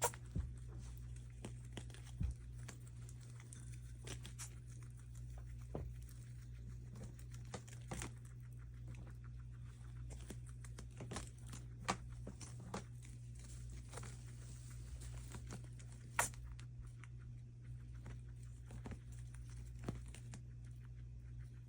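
Guinea pig sneezing: several short, sharp sneezes spaced seconds apart, among soft rustling, over a steady low hum.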